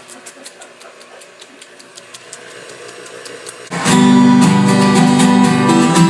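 Acoustic guitar strummed together with upright piano chords, starting suddenly and loud a little more than halfway in; before that only faint scattered clicks.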